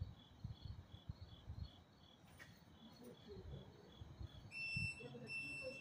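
Crickets chirping in a steady, even pulse of about two or three chirps a second, with low thumps on the microphone. About four and a half seconds in, a high electronic beeping tone starts, sounding on and off.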